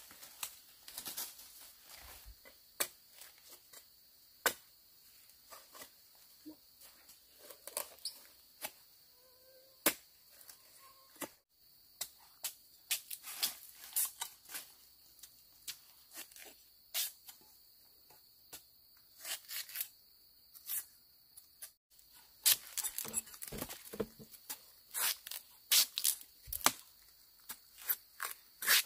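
Steady high-pitched insect drone, with many irregular sharp cracks and rustles over it that come thicker and louder in the last several seconds.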